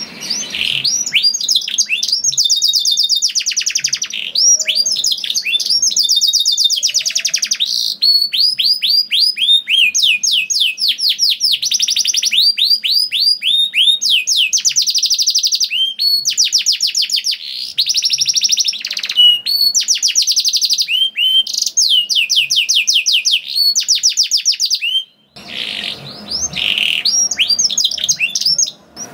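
Domestic canary singing a loud, continuous song of fast trills: runs of quick down-sweeping notes repeated many times a second, with one brief break near the end.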